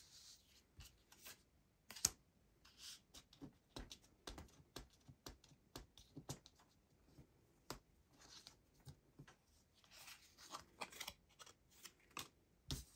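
Stiff printed cards and a sticker being handled, slid and tapped on a wooden tabletop: quiet papery rustles and scrapes with many light taps, the sharpest about two seconds in.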